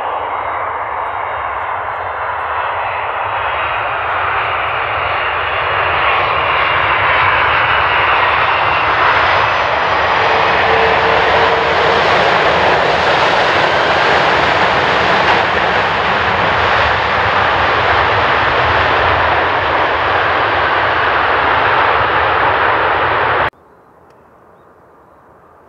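Boeing 767-300ER jet engines running loud on the runway, a dense rushing noise that builds over the first dozen seconds and then holds steady. About two seconds before the end it cuts off abruptly to a faint, low background.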